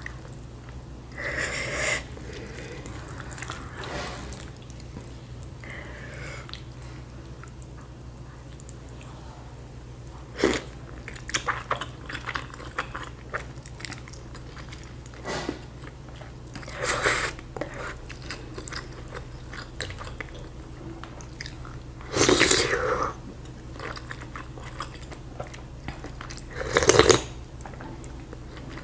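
Close-up eating sounds of a person eating bakso meatball soup: chewing, with short, irregular slurps and mouth noises as she sucks up rice vermicelli noodles, the loudest about two-thirds of the way through and near the end. A steady low hum runs underneath.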